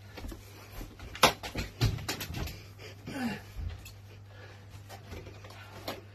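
Scattered knocks, bumps and clicks of a person clambering onto the top of a white box-shaped appliance, with a sharp knock about a second in and smaller ones after, over a low steady hum.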